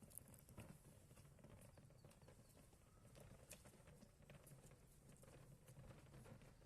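Near silence: faint room tone with a few faint scattered ticks.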